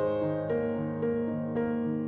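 Gentle keyboard background music: a slow melody, with notes changing about twice a second over a repeating low note.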